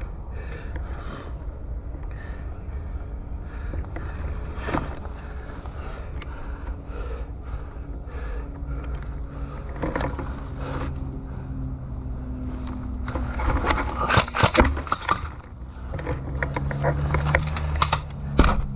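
Gas blowback airsoft gun firing in quick bursts of sharp clacks about two-thirds of the way in and again near the end, over a steady low drone.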